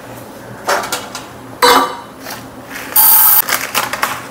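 A steel container of flaxseeds and a spoon being handled at a kitchen stove: a few knocks and clinks, then a louder half-second metallic rattle about three seconds in.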